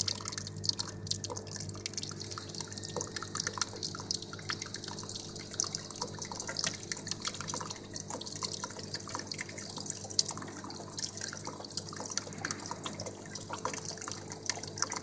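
Coffee vending machine humming steadily while liquid drips and trickles from its dispenser nozzles into a paper cup, with a dense irregular crackle of drops and fizzing foam.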